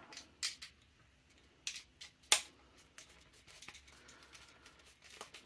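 Torx screwdriver undoing small screws in an airsoft rifle's plastic pistol grip: a few scattered light clicks, the sharpest about two seconds in, then faint ticking and handling.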